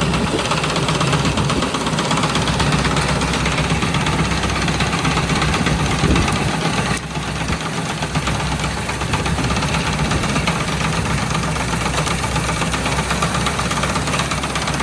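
A 65 hp tractor's diesel engine running steadily, with a brief dip in level about seven seconds in.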